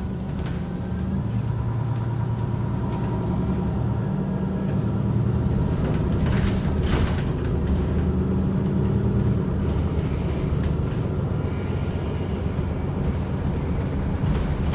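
City bus running along the road, heard from inside the passenger cabin: a steady low engine and road rumble, with a short clatter a little past halfway through.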